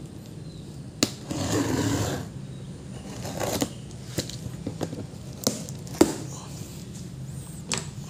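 Cardboard box being handled and opened: a couple of short scraping rustles in the first half and several sharp knocks on the box, the loudest about six seconds in.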